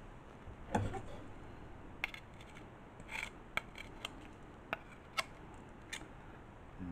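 Metal garlic press crushing a garlic clove: faint, scattered sharp clicks from its hinged handles, with a brief thump about a second in.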